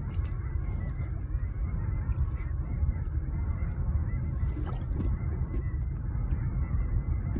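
Many seabirds calling over a steady low rumble.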